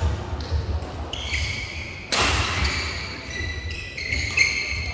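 Badminton rally: a racket strikes the shuttlecock several times with sharp cracks, the loudest about two seconds in. Shoes squeak high on the court floor between hits.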